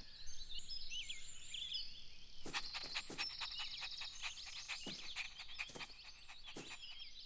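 Outdoor garden ambience of birds chirping and twittering, with a rapid trill a few seconds in.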